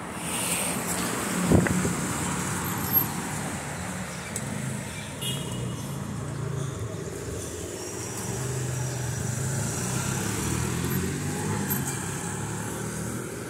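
Street traffic: car engines running and cars passing on a city street. A sharp knock comes about a second and a half in, and a smaller one at about three seconds.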